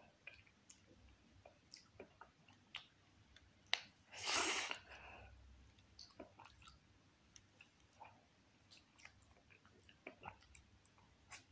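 Close-up chewing of a frozen ice cream bar: soft, wet mouth clicks scattered throughout, with one louder, noisier mouth sound about four seconds in.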